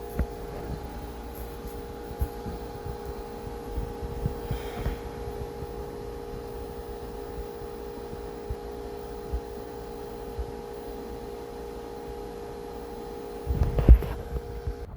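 Steady electrical hum made of several even tones, with scattered light clicks and handling knocks over it. A few louder knocks come near the end, and the hum stops just before the end.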